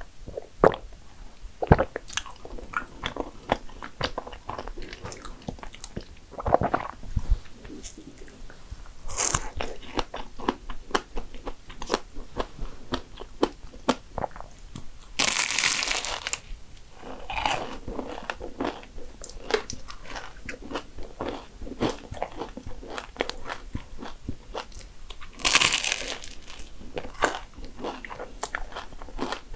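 Eating sounds: bites into a flaky strawberry-cream danish pastry, its crisp layers crunching and crackling, then chewing. Two louder crunching bites come about halfway through and near the end.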